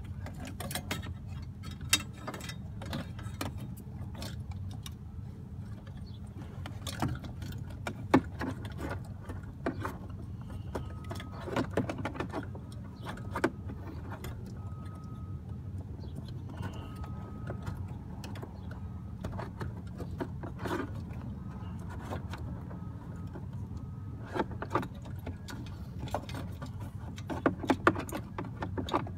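Scattered clicks, taps and rustles of a hand working wires and plastic trim up behind a truck's dashboard, over a steady low hum.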